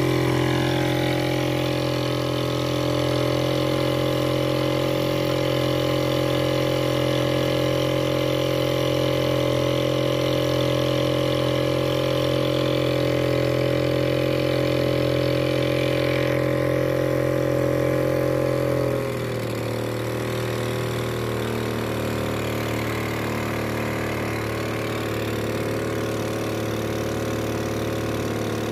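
A small outboard motor on a drum boat running steadily under way. About two-thirds of the way through, it slows and its pitch drops, then it runs on evenly at the lower speed.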